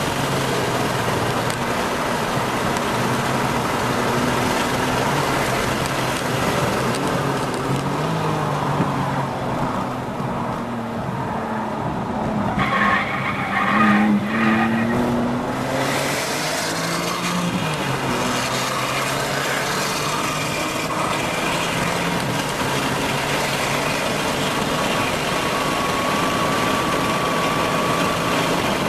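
A car's engine heard on board during a fast lap of a road-racing circuit, its pitch rising and falling with throttle and gear changes. About ten seconds in it eases off as the car slows, then it revs up and down for a few seconds before it pulls steadily again.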